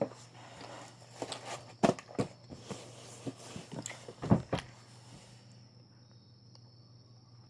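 Scattered knocks and clicks, most of them in the first four and a half seconds, then only a steady low hum.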